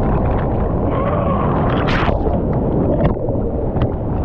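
Breaking-wave whitewater rushing around a surfboard, with wind buffeting the microphone, spray droplets ticking against it, and a louder splash about two seconds in.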